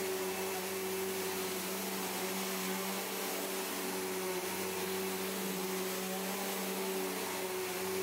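2005 Bissell CleanView Revolution Deluxe bagless upright vacuum cleaner running on carpet as it is pushed back and forth. Its motor hums at a steady pitch under an even rush of air.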